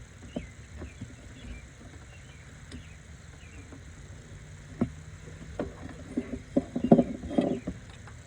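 Scattered knocks and clinks of engine parts and tools being handled during engine disassembly, a few light ones early and a quick run of louder ones about five to seven and a half seconds in, over a steady low background.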